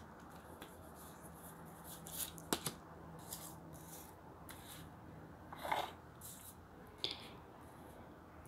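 Tarot cards being handled and slid across a wooden tabletop: a handful of short, soft scrapes and light taps, the loudest about two-thirds of the way through.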